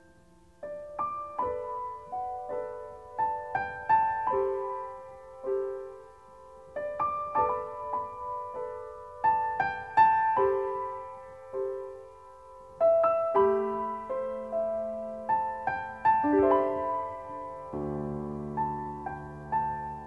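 Background piano music: a slow, gentle melody of single notes, starting about a second in, with deeper chords joining near the end.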